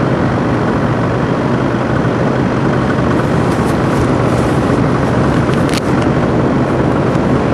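Steady drone of a small aircraft's engine in flight, mixed with wind rushing over the microphone, with a few faint ticks about halfway through.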